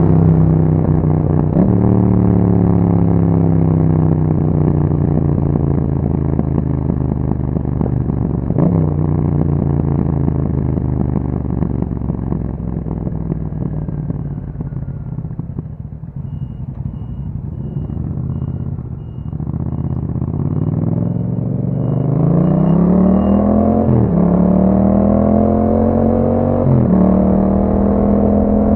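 2021 Yamaha MT-07's parallel-twin engine through an Akrapovic exhaust. It winds down on the overrun for the first twenty seconds or so, with two brief sharp blips, and falls nearly to idle. Then it pulls away, rising in pitch through two gear changes near the end, and settles to a steady cruise.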